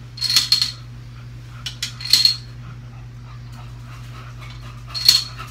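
Plastic Connect 4 checkers dropping into the upright grid, each one rattling down its column in a short, clicky clatter. About four such clatters, a second or two apart.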